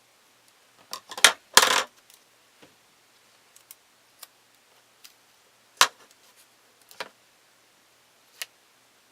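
Small hard objects being handled and set down: sharp clicks and a brief clatter about a second in, then three more single clicks spread out after.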